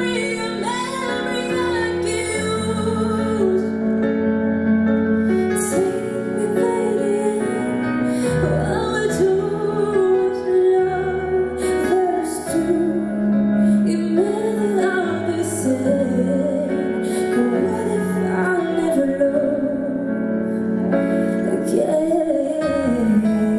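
A woman singing a pop ballad live through a handheld microphone over a piano accompaniment, her voice holding long notes and sliding between pitches.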